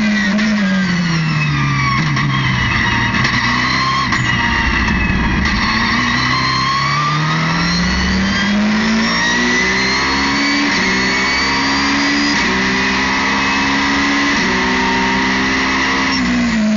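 Ferrari 458 GT2 race car's V8 heard from inside the cockpit. The engine note falls under braking and downshifts, then the car accelerates hard out of a slow corner, the revs climbing in steps with quick upshifts that each drop the pitch. Near the end the revs fall off again.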